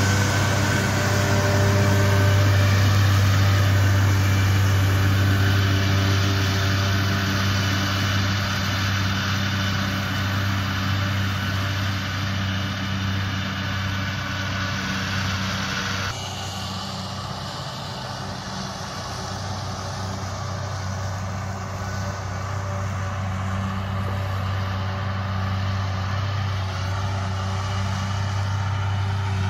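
New Holland T5.115 tractor's four-cylinder diesel running steadily under load while driving a Kverneland 3228 disc mower through grass, a constant low engine hum. About halfway through the sound turns duller and quieter as the higher tones drop away.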